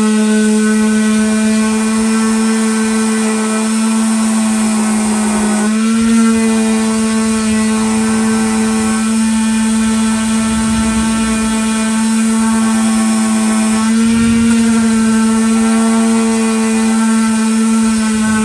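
Electric power sander running steadily while sanding a wood round, a loud constant motor hum that dips briefly in pitch twice, about six seconds in and again near fourteen seconds.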